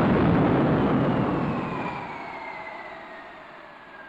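Early Whittle experimental gas-turbine jet engine on a test run. A loud rushing roar dies away over about two seconds, leaving the turbine's whine falling steadily in pitch as the engine runs down.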